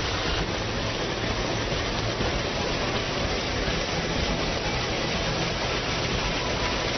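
Chili-pepper harvesting machine running as it moves along the rows picking chilies: a steady, even noise from its picking mechanism and the plants, with a low engine hum underneath.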